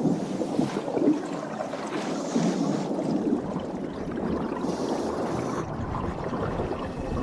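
Rushing, gurgling water: a steady, churning wash that swells and ebbs.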